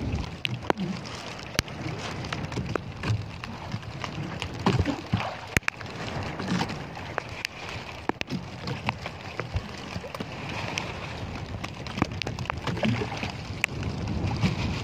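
Sea water lapping and dripping against a small outrigger boat's hull and bamboo outrigger, with many scattered sharp clicks and knocks.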